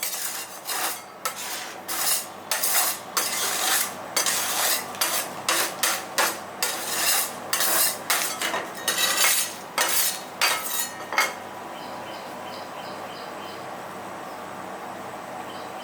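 Metal spatulas rapidly clacking and scraping on the steel cold plate of an ice-roll pan as the mix is chopped and worked. The strokes stop about eleven seconds in, leaving a steady background noise with faint light ticking.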